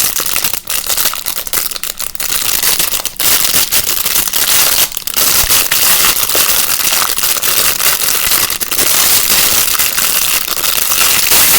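Plastic packaging crinkling and crackling close to the microphone as a fidget toy is unwrapped and handled, a dense run of small crackles and clicks.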